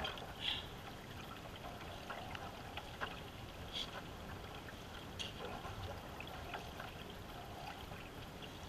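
Canoe paddling: water trickling and splashing as paddle strokes pull through the river, with a few short clicks.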